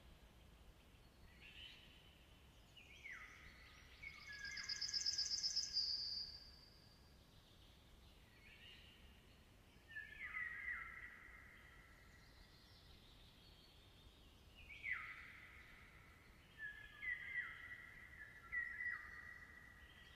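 Songbirds singing: repeated short falling whistled phrases throughout, with a loud, fast, high trill about four to six seconds in, over a faint steady hiss of background noise.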